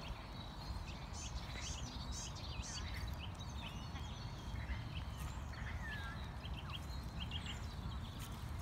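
Birds chirping and singing, many short calls and whistled glides, over a steady low rumble.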